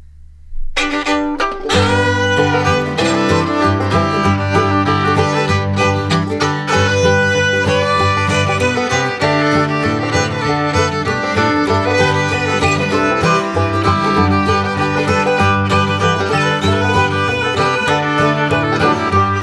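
Background bluegrass-style music with fiddle over plucked strings and a steady bass rhythm, starting just under a second in.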